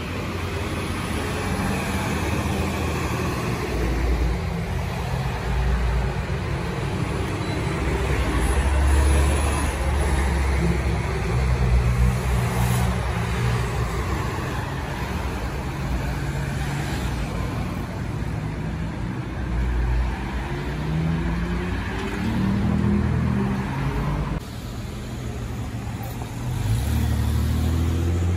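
City transit buses driving past, their engines running loud and low, with the engine pitch rising in steps as a bus pulls away, amid street traffic. The sound drops suddenly near the end, then another bus engine comes in.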